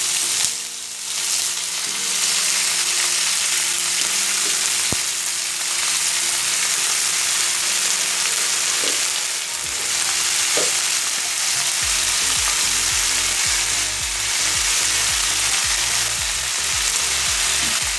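Garlic-marinated beef strips sizzling steadily in hot oil in a frying pan, a dense even hiss.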